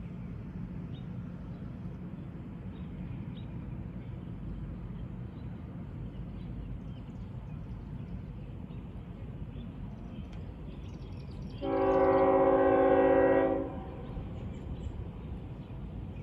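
Train horn sounding one steady blast of about two seconds, several tones together in a chord, over a steady low background rumble.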